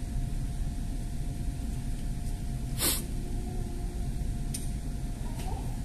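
Steady low background rumble with one short, sharp hiss about three seconds in, then a few light plastic clicks as toy kitchen dishes are handled.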